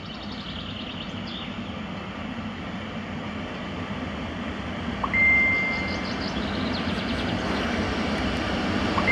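EP08 electric locomotive approaching with a passenger train, its running noise growing steadily louder. About five seconds in it sounds one short, high-pitched whistle blast of about a second, and a second blast starts right at the end.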